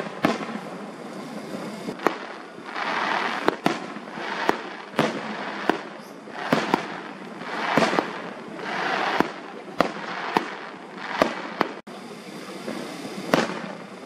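Aerial fireworks shells bursting: an irregular run of sharp bangs, about one or two a second, with swells of hissing noise between them.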